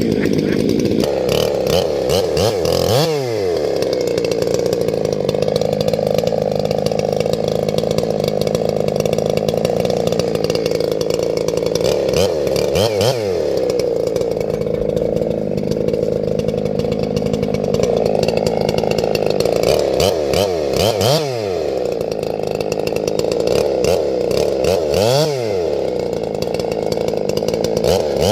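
Two-stroke chainsaw running at full throttle, its engine note held high and steady. About five times the revs drop sharply and climb straight back as the saw comes off the throttle.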